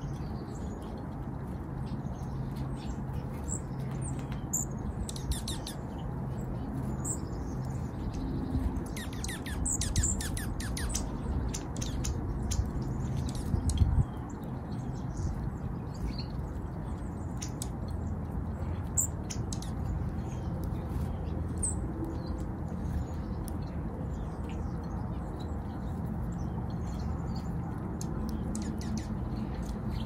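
Small songbirds chirping and chipping on and off, with a quick run of about eight notes around ten seconds in. Underneath is a steady low rumble with a hum that cuts off suddenly about fourteen seconds in.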